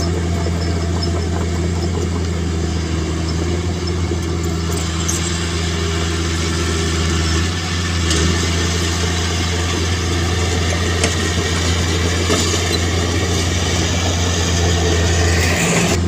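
Heavy-equipment diesel engine running steadily at a low, even pitch, with a brief dip in level about halfway through.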